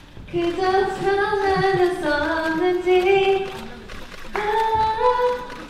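A woman singing a slow melody in long held notes, with little or no audible accompaniment. There is a short pause about four seconds in, then another long held note.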